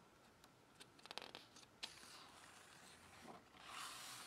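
Faint handling of a hardcover picture book: a few soft clicks, then a brief paper rustle near the end as a page is turned and a hand smooths it flat.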